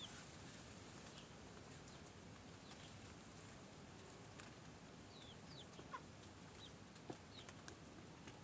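Faint, scattered peeping of young chickens: short, high notes that fall in pitch, several in the second half, with a couple of soft clicks.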